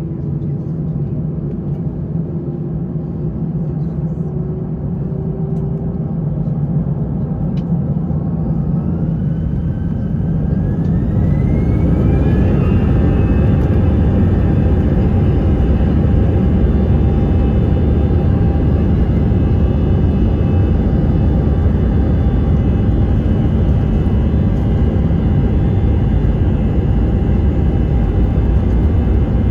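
Airbus A320 jet engines heard from inside the cabin spooling up to takeoff thrust: from a steady idle hum, a rising whine climbs over about five seconds, starting about eight seconds in. The engines then run steadily at full power over a heavy low rumble of the takeoff roll.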